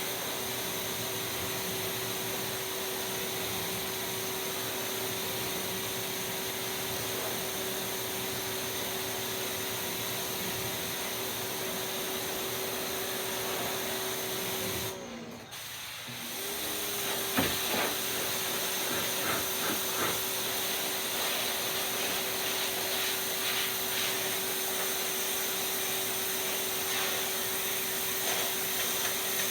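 Pressure washer running with a steady hum under the hiss of its water spray. It cuts out briefly about halfway through, then comes back with a few sharp clicks.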